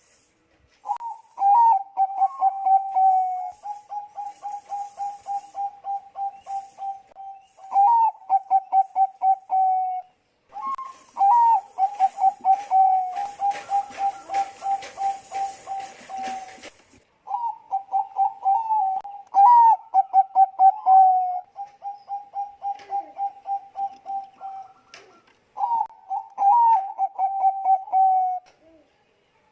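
Zebra dove of the Bangkok song strain (perkutut bangkok) cooing in full song: about five long phrases, each opening with a few loud bent notes and running on into a long, fast, even trill of pulsed coos.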